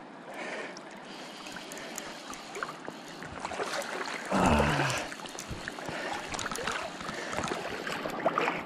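Steady rushing of river water, with scattered clicks and knocks through it. A short voiced grunt about four and a half seconds in.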